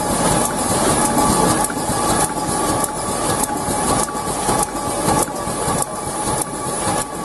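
Vega Altair folder gluer running at production speed, a steady mechanical rumble of belts, rollers and rails with a few steady whining tones. A light clack repeats a bit under twice a second as cardboard box blanks pass through.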